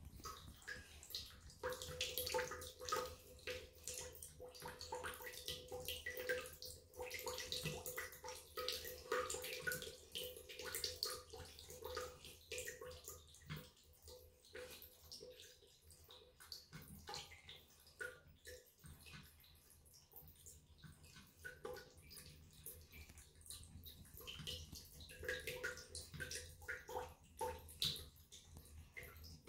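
Thin stream of water from a shower-stall tap spout trickling and splashing, with a cat lapping at the stream in many irregular small ticks. It is louder in the first half.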